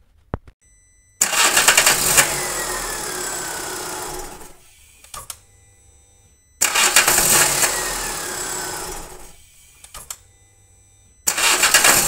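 Volkswagen Polo MPI petrol engine being started three times. Each start begins suddenly with loud, noisy starter cranking and a falling whine, then dies away over a few seconds. The starting is noisy: the starter's nose bearing has broken up.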